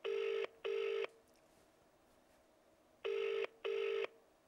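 British phone ringing tone (ringback) heard through a mobile phone's loudspeaker: two double rings, 'brr-brr' ... 'brr-brr', while the call waits to be answered.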